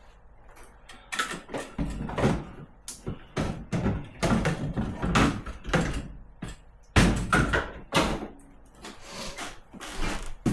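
Knocks, clunks and scrapes inside a fridge's freezer compartment as the ice maker unit is pushed back into place and its mounting screws are worked. The loudest knock comes about seven seconds in.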